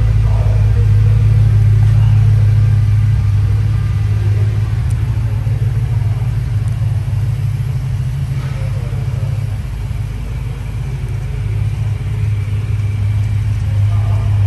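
MG RV8's 3.9-litre Rover V8 engine idling steadily with a low rumble.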